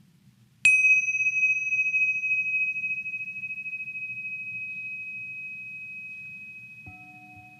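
A small bell struck once, ringing with a clear high tone that fades slowly over several seconds. Near the end a second, lower-pitched bell is struck and keeps ringing.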